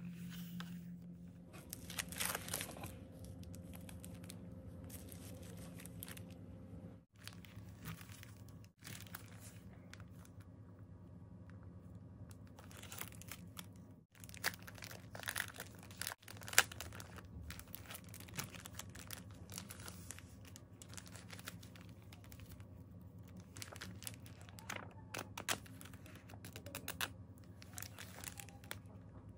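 Plastic wrapping crinkling and paper rustling as a pack of loose-leaf binder refill paper is handled and a sheet is drawn out, in irregular sharp rustles over a faint steady hum.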